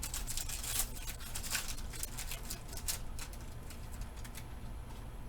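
A Panini Prizm basketball card pack's wrapper being torn open and crinkled: a quick run of sharp crackles over the first three seconds, then quieter handling.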